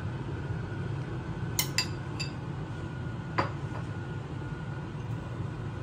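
A spoon clinking against ceramic serving bowls: three quick clinks about a second and a half in, then one more a little past the middle, over a steady low hum.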